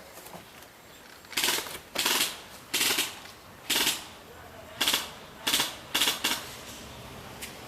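Airsoft gun firing about eight short bursts of rapid shots in quick succession, each a fast rattling clatter lasting under half a second.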